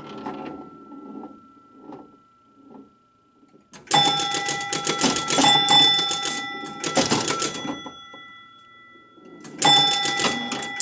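1969 Gottlieb Airport electromechanical pinball machine in play. After a few quieter seconds with faint knocks, rapid clattering of relays and score reels starts about four seconds in, with chimes ringing over it, and runs for about four seconds. It starts again near the end.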